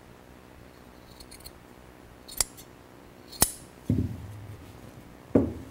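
Scissors cutting jute carpet padding: a few faint snips, then two sharp snips about a second apart, followed by two dull thumps.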